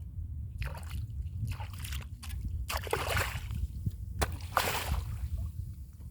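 Water splashing and sloshing in irregular short bursts, with a few sharp clicks, over a steady low rumble.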